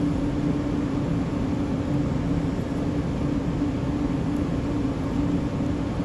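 Steady mechanical hum with a constant low tone, holding at an even level throughout.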